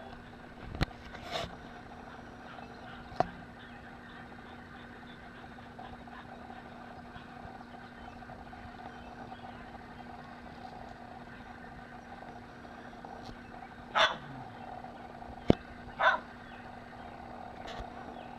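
Shetland sheepdogs at play give three short barks, one about a second in and two close together near the end, over a steady background hum with a few faint clicks.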